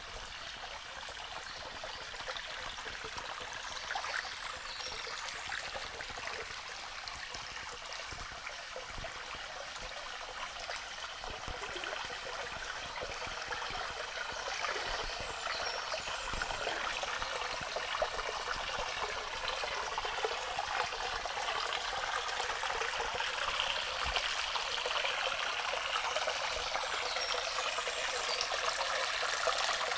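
Shallow brook flowing and trickling over stones, a steady babble that grows slightly louder toward the end.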